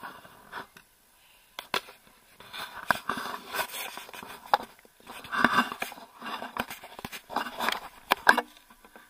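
Irregular rustling and scraping with several sharp knocks: handling noise as a person moves about in a small boat and leans over its side.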